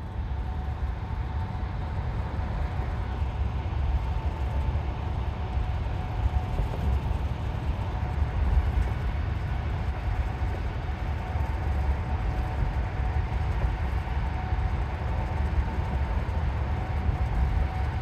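Steady low rumble of a running vehicle, with two faint steady humming tones above it.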